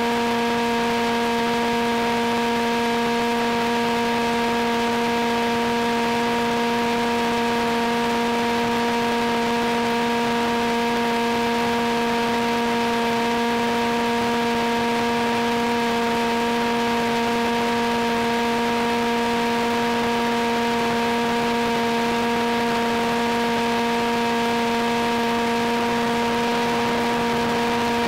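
Steady hiss with a constant, unwavering hum and its overtones, holding one pitch and one level throughout.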